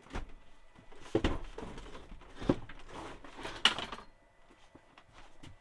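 Knocks, clunks and scraping as a compressor fridge is worked out of its cabinet, with three sharper knocks in a run that dies down after about four seconds.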